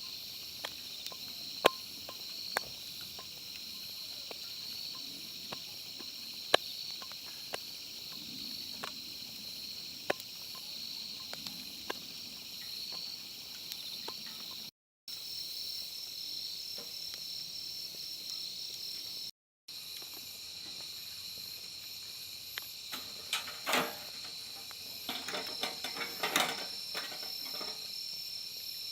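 Insects chirping steadily in a high chorus, with scattered sharp clicks and a cluster of clattering knocks about three-quarters of the way through.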